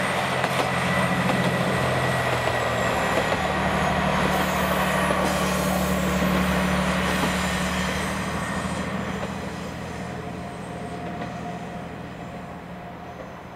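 JR West KiHa 120 single-car diesel railcar running by: a steady diesel engine drone with wheel-on-rail noise. It is strong at first and fades away over the last five seconds or so.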